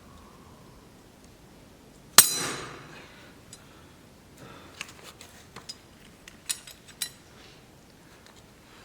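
Pliers working a tight retaining bracket off a turbocharger part: one sharp metallic clink that rings, about two seconds in, then a few light metal clicks and taps.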